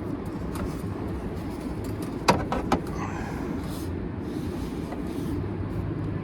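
Steady low mechanical rumble, with two sharp clicks a little over two seconds in.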